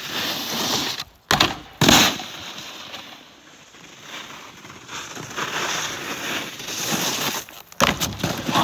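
Snowboard sliding and scraping over snow, with a couple of sudden loud hits a little under two seconds in. The sound cuts out briefly about a second in and again near the end.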